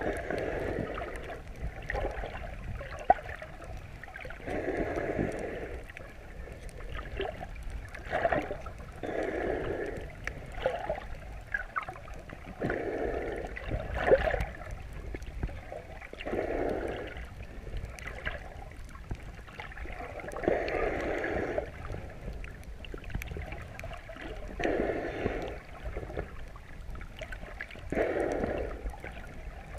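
Muffled underwater sound through a chest-mounted GoPro housing: the wearer's slow, rhythmic breathing, one rush of breath about every four seconds, over steady water noise with scattered faint clicks.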